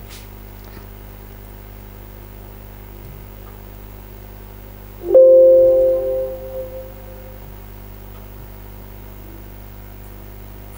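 Electronic computer chime about five seconds in: a few tones sounding together, starting suddenly and fading away over about two seconds. Under it runs a steady low hum.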